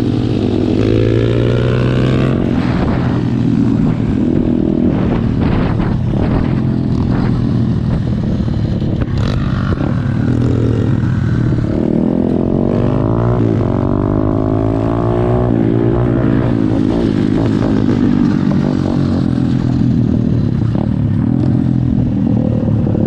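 SSR pit bike's small single-cylinder four-stroke engine running under way, heard from on board. Its pitch rises and falls repeatedly as the throttle is opened and eased.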